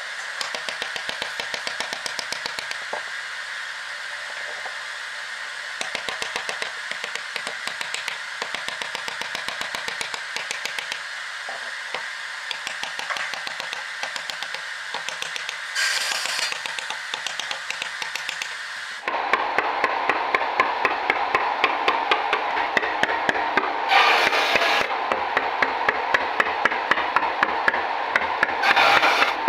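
Carving chisel being struck with a mallet into wood, a steady run of sharp taps at about two to three blows a second. The sound changes abruptly about two-thirds of the way through, becoming louder and fuller, and the tapping carries on.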